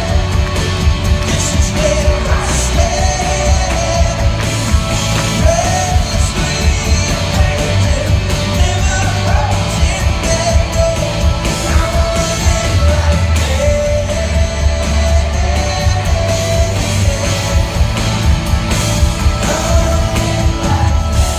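Live band playing a loud rock-style worship song, with drums and heavy bass under a wavering melodic lead line.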